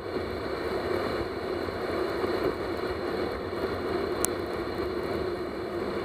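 Steady rushing hiss of a dog-drawn sled sliding over snow while the dogs run ahead, with one sharp click about four seconds in.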